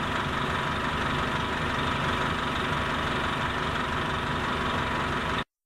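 Diesel engine of an Orion V transit bus idling steadily; the sound cuts off abruptly near the end.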